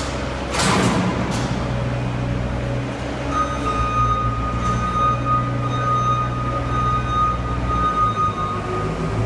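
Compact tracked skid-steer loader's engine running steadily under load as it carries a heavy crate, with a few sharp knocks about a second in and a steady high whine joining about three seconds in.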